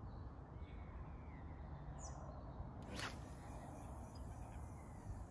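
Quiet lakeside ambience with faint bird chirps and one short click about three seconds in.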